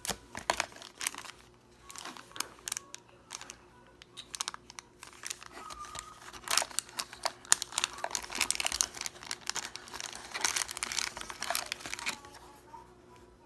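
Packaging crinkling and rustling as camera accessories are unwrapped by hand, in irregular crackles that grow dense from about six seconds in and thin out near the end.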